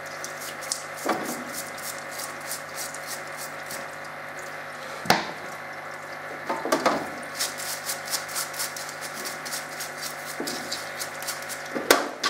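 Small copper wire brush scrubbing crud off a metal engine part, in quick scratching strokes, over the steady hum of a Clarke parts washer's pump and its running stream of cleaning fluid. A sharp knock comes about five seconds in and another near the end.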